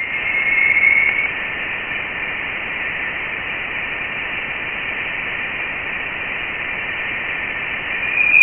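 Voyager 1 plasma-wave recording of interstellar plasma, played as sound: a steady hiss with a high-pitched tone riding near its top, louder about a second in and swelling again near the end. The tone's pitch is believed to track the density of the plasma.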